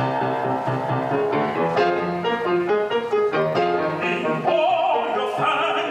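Grand piano playing steady chords as accompaniment. About four and a half seconds in, an operatic singing voice comes in with a wide vibrato.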